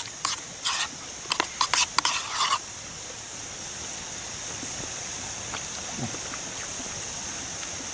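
A few short rustling and scraping noises close by in the first couple of seconds, then a steady high hiss.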